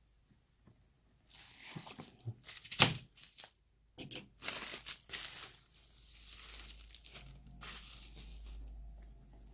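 Plastic packaging from a smartphone box crinkling and tearing in handling, in irregular rustling bursts with one sharp, loud crackle about three seconds in.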